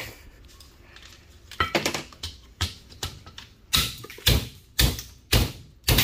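Hatchet striking a microwave's small fan motor as it is knocked apart for scrap. The blows are sharp, a few scattered ones about a second and a half in, then a steady run of about two a second.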